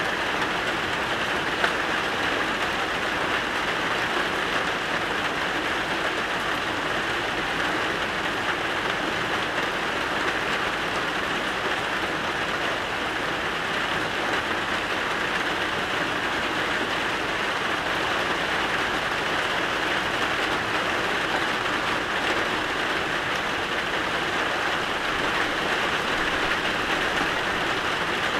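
Steady rain falling, an even constant hiss with no change in strength. One small click about a second and a half in.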